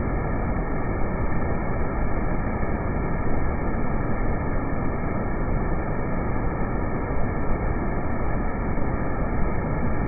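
Waterfall: a steady, dull rush of water falling over a wide cascade, with no high hiss.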